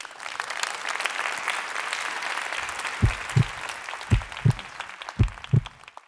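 Audience applauding, with three pairs of deep thumps in the second half. The applause cuts off at the end.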